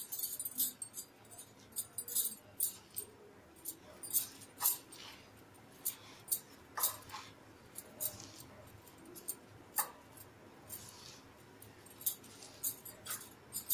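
Fritter batter of ground fresh coconut, flours and spices being mixed by hand in a bowl: irregular light clicks and scrapes.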